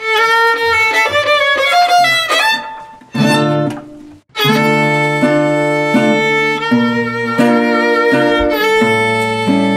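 A violin plays an opening phrase alone. After a short break about three seconds in, an acoustic guitar joins with chords and bass notes under the violin melody in a steady rhythm.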